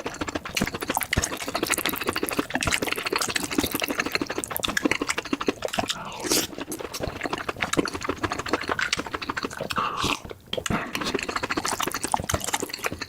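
Close-miked chewing of spicy mushrooms: a dense, continuous run of wet mouth clicks and smacks, broken by a brief pause about ten seconds in.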